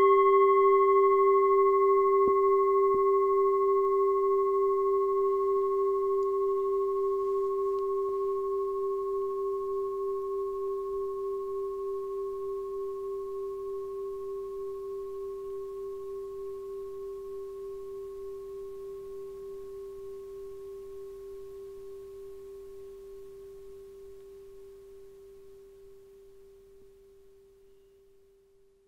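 A singing bowl struck once, its low tone with fainter higher overtones ringing on with a slight wavering pulse and slowly dying away, fading out near the end.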